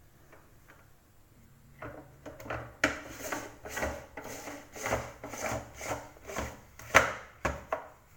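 eSpring water purifier's plastic filter cartridge being pushed and worked down into its housing: from about two seconds in, a run of rubbing and scraping strokes with sharp knocks, the loudest about seven seconds in.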